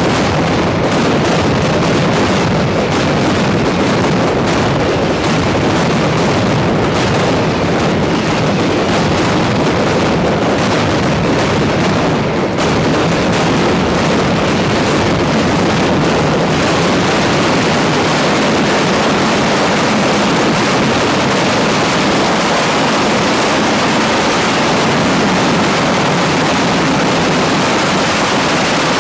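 Mascletà firecrackers going off in a dense, loud barrage, the individual bangs packed so close that they merge into one continuous din, most so in the second half.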